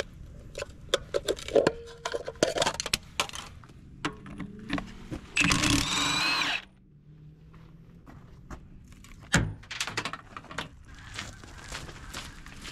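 Scattered metal knocks, clanks and rattles of scrap being handled, with one loud scrape of a little over a second about five and a half seconds in, a high squeal wavering through it.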